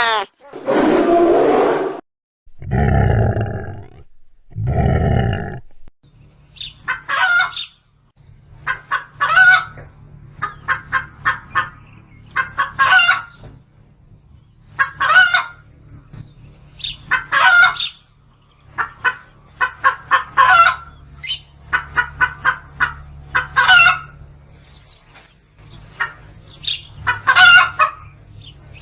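Chickens cackling in an alarm call: runs of quick clucks that each end in a longer, louder squawk, repeating about every two seconds, over a steady low hum. Several deep, loud calls from another animal come first, in the opening six seconds.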